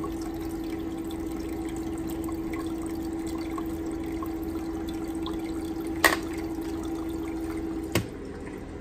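Euhomy countertop ice maker running: a steady hum with water trickling inside. A sharp click about six seconds in, and another about eight seconds in as the lid shuts, where the hum stops.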